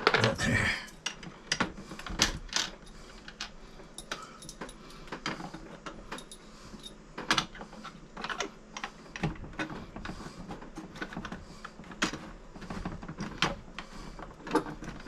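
Irregular light clicks and taps of plastic and metal hardware being handled and fitted, as a bidet attachment and toilet seat are set in place on a toilet.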